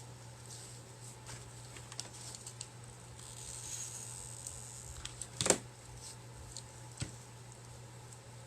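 Light handling noises as rope is pressed and glued onto a clay pot: scattered small clicks and rustles, a soft hiss in the middle and one sharper knock about five and a half seconds in, over a steady low hum.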